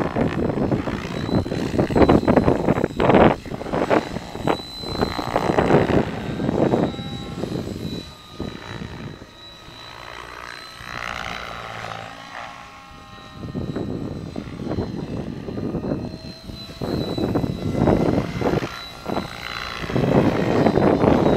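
ATOM 7HV electric RC helicopter flying aerobatics: its main rotor blades swish in loud surges that rise and fall with each manoeuvre, together with a gliding whine from the brushless motor and drivetrain. It eases off for several seconds in the middle, then comes back loud near the end.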